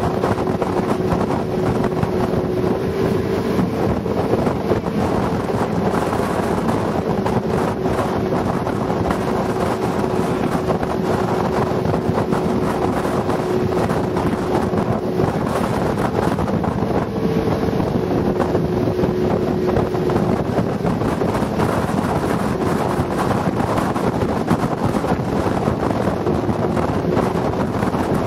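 Motorboat engine running steadily at speed, its tone shifting slightly in pitch now and then, with wind buffeting the microphone and water rushing along the hull.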